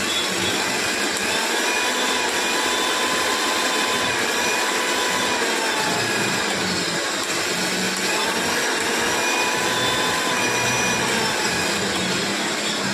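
Mixer grinder motor running steadily at high speed, a loud whirring hum whose pitch wavers slightly.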